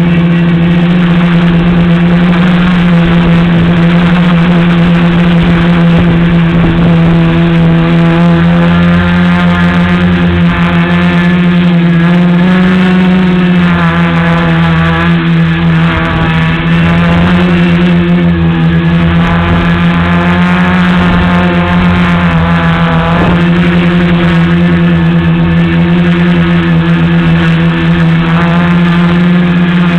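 Tricopter's electric motors and propellers buzzing in flight, a loud steady drone whose pitch rises and falls a little with throttle, with a short dip in pitch near the end.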